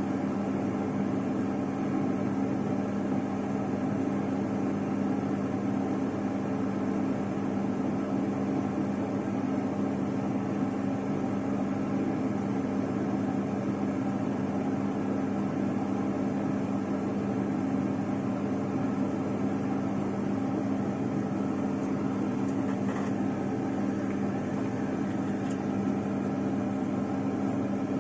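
Fan for drawing off solder fumes running with a steady, even hum. There are a couple of faint light clicks near the end.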